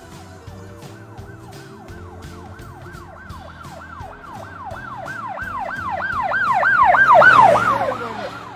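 Siren wail of rapid rising-and-falling sweeps, about three a second. It grows louder to a peak near the end, then fades as its pitch drops.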